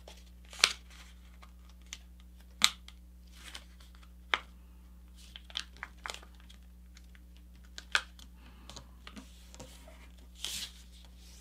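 A sheet of paper being folded and creased by hand on a tabletop: a handful of short, sharp crinkles and rustles spread through, the edge pulled in to a centre crease and pressed flat.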